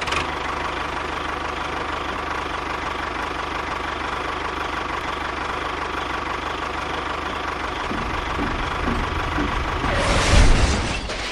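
Small engine-like motor of a miniature toy tractor running steadily with a rapid, even chugging. About ten seconds in it swells into a louder, rougher rumble for about a second.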